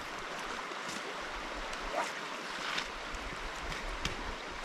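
Steady rush of a flowing river.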